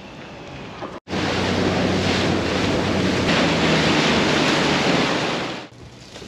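Wind rushing over the microphone and water hissing and splashing past a fast-moving inflatable dinghy, with the steady low hum of its outboard motor underneath. The sound starts suddenly about a second in and cuts off shortly before the end.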